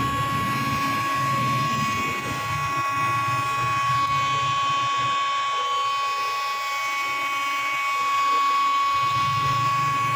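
Electric heat gun running steadily with a high whine, blowing hot air onto a plastic car bumper to soften it so the dent can be pushed out.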